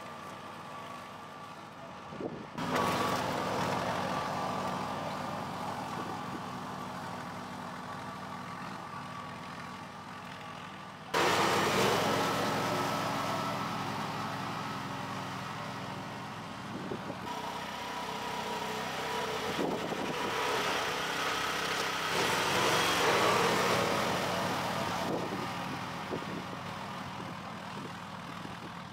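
Mini tractor engine running steadily under load while it pulls a moldboard plow through soil, with sudden jumps in loudness about two and a half and eleven seconds in.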